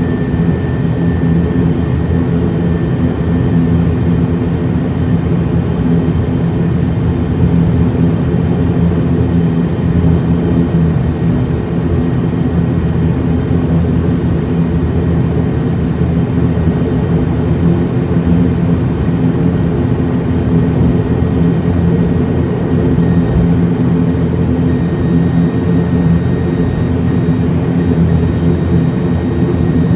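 ATR 72's twin turboprop engines and propellers running at taxi power, heard from inside the cabin: a steady, loud drone made of several low hums with a thin high tone above. A fainter whine fades out in the first few seconds.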